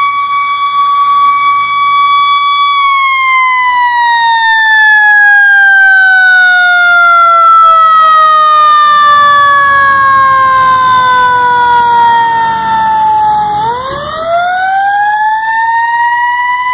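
Fire engine siren, loud: it holds one steady high pitch, then slowly falls in pitch for about ten seconds, then winds quickly back up near the end.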